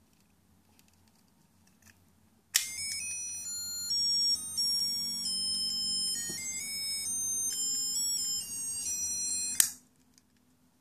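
Crong melody watch toy playing a high electronic beeping tune, one note at a time, for about seven seconds. It starts with a click a little over two seconds in and cuts off suddenly near the end. Before it there are only faint handling sounds of the plastic toy.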